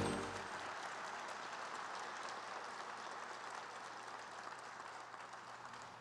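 Audience applauding, fairly faint and slowly dying away; the tail of a piece of music fades out in the first half second.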